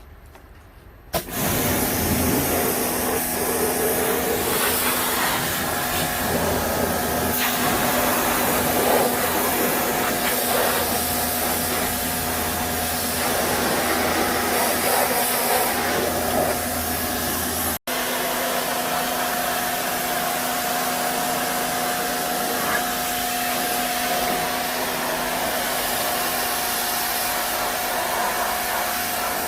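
A motor-driven machine running steadily, with a rushing air hiss over a constant hum. It starts abruptly about a second in and cuts out for a moment about two-thirds of the way through.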